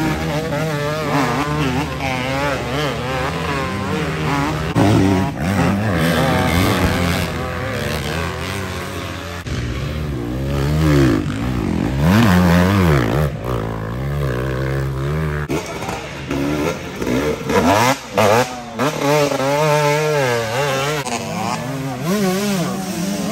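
Several off-road dirt bike engines revving hard at once, their pitch rising and falling in uneven surges as the riders fight for grip on a deep mud climb. The engines are under heavy load with the rear wheels spinning in the mud.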